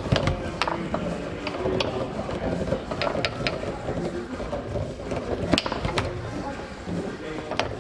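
Tornado foosball table in play: irregular sharp clacks of the ball being struck by the rod men and knocking against the table, with rods rattling, over a steady background hum of the hall.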